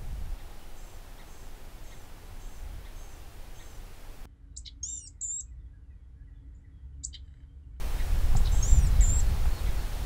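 Blue-gray gnatcatcher calling: short, thin, very high notes in small clusters, a couple of seconds apart, starting about four seconds in. Before that, fainter high notes repeat about twice a second, and near the end a loud low rumble comes in under the calls.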